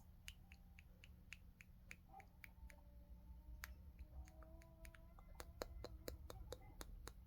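Faint, quick clicking from a green-cheeked conure preening its wet feathers, about four clicks a second, coming faster and a little louder after about five seconds.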